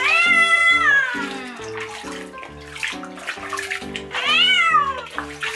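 A cat meowing loudly in protest while being bathed: two long, drawn-out meows that rise and fall in pitch, one at the start and one about four seconds in.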